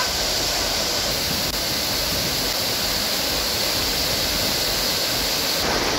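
Chinna Suruli waterfall in full flow after continuous rain: a steady roaring rush of water pouring down over the rock.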